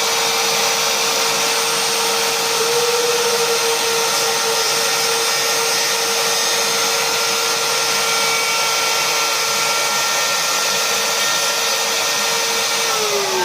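Handheld electric router running at full speed with a steady high whine as it cuts a birdhouse entry hole; near the end it is switched off and the whine falls as the motor spins down.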